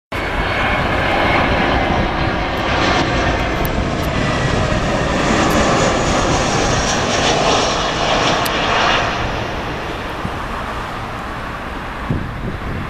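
Airbus A321 jet airliner flying low overhead on final approach with its gear down. Its engine noise is steady and loud, then fades over the last few seconds.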